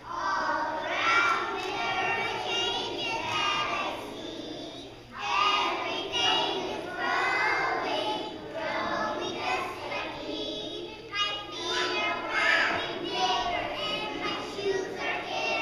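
A group of young children singing a song together in phrases.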